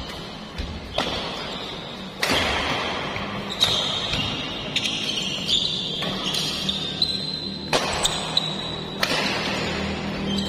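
Badminton doubles rally: racket strings striking the shuttlecock about every second and a half, with sneakers squeaking on the court floor between shots.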